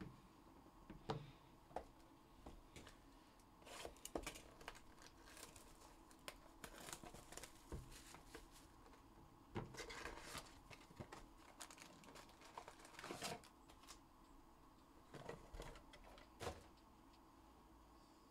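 Faint crinkling and tearing of plastic wrapping on 2021-22 Panini Donruss Elite basketball card packs as they are opened, with scattered light clicks and taps from handling the packs and cards.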